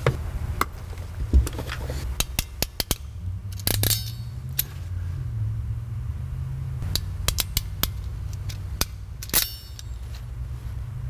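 Small sharp clicks and light rattles of wiring connectors being handled and plugged together, with quick runs of clicks partway through and near the end, over a steady low hum.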